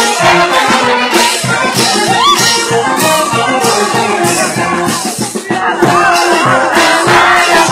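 Loud live band music with a fast, steady beat and a melody line, with crowd voices underneath.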